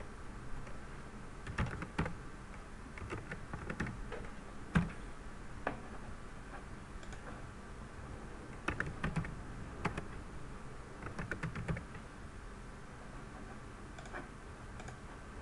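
Computer keyboard typing in short clusters of keystrokes, with pauses of a second or more between them.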